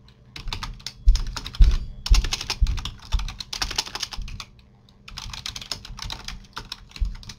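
Computer keyboard typing a short phrase in quick runs of keystrokes, some landing with a low thump, with a brief pause a little past halfway.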